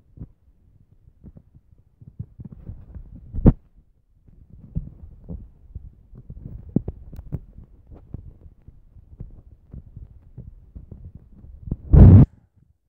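Irregular low rumbling and thumping on the microphone of a handheld phone carried along while walking. Two loud blasts stand out: a short one about three and a half seconds in and a longer one near the end.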